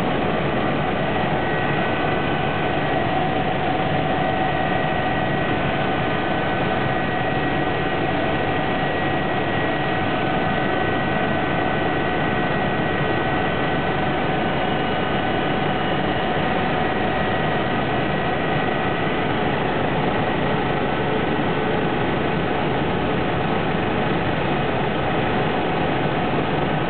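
Cabin noise of a BK 117 twin-turbine helicopter in forward flight: a steady rush of rotor and engine noise with several high, steady whines running through it.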